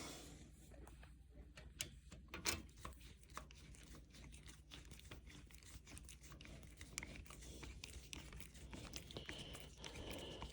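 Faint, scattered clicks and small handling noises of a screw being tightened through a washer into the planter frame's brace, over a low steady hum; two clicks about two seconds in are the loudest.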